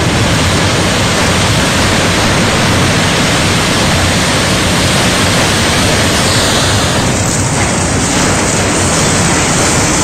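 Floodwater rushing in a torrent: a loud, steady noise of churning water with no break.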